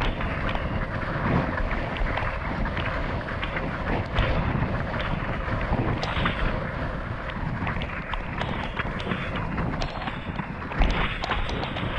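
Wind buffeting the microphone of a camera on a slalom windsurf board racing over choppy water, with water rushing and the hull slapping the chop in many small sharp knocks. One louder knock comes near the end.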